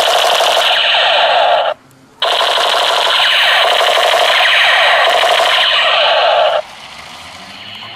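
Battery-powered toy machine gun playing its electronic rapid-fire sound effect through a small speaker, a loud rattle. It cuts out just under two seconds in, resumes after half a second, and stops abruptly about a second and a half before the end.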